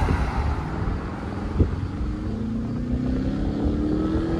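A pickup truck passing close by, its tyre and engine rush fading over the first second or so, then a vehicle engine rising steadily in pitch as it accelerates from about two seconds in. Wind buffets the microphone with low thumps.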